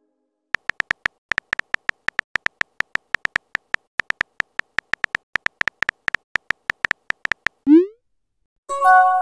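Chat-app typing sound effect: a rapid run of short, identical electronic beep-clicks, one per keystroke, about six a second for some seven seconds. It is followed near the end by a short rising whoosh as the message is sent and a chime as the new message pops up.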